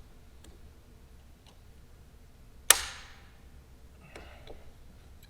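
Hand-tool work with vice grips on a broken lag screw in a wooden stage floor: one sharp clack about halfway through, with a short ring after it. A few faint clicks sound before and after it.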